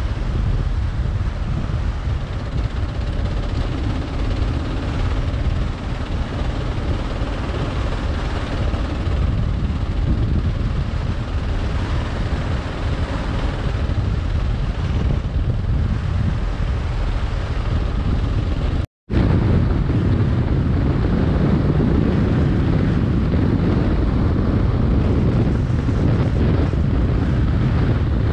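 Steady wind rush on the microphone of a Kawasaki KLR 650 riding at speed, mixed with the motorcycle's engine and road noise. The sound cuts out for a moment about two-thirds through, then comes back with a slightly heavier low rumble.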